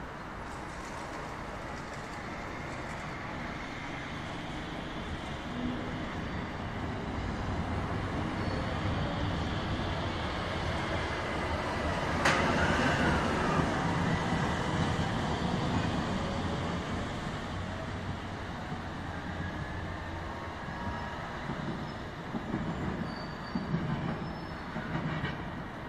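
A low-floor electric tram passing at street level. Its running sound swells to a peak about halfway through, with a sharp click and a brief wheel squeal as it goes by, then dies away under steady street noise.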